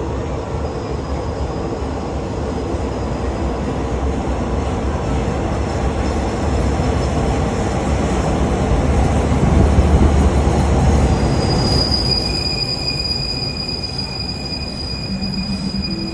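Passenger train running along the track, a steady rumble and rattle of wheels on rails heard from inside the carriage. It swells louder around the middle, then eases, and a thin, high, steady squeal comes in about three quarters of the way through.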